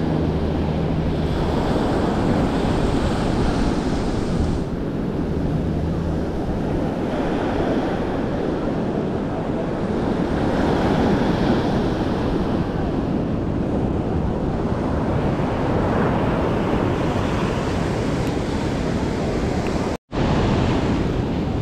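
Ocean surf breaking and washing on the shore, with wind buffeting the microphone. The sound cuts out for a moment near the end.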